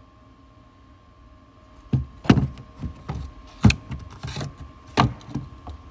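A series of irregular knocks and clunks, the loudest about two seconds in, near the middle and about five seconds in, after a quiet start with a faint steady hum.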